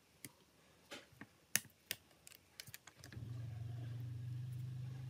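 A run of light, sharp clicks and taps, then a steady low hum starting about three seconds in.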